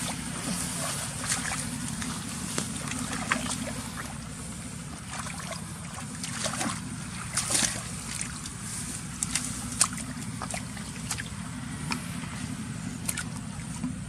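Water sloshing and splashing in short, irregular bursts, over a steady low hum.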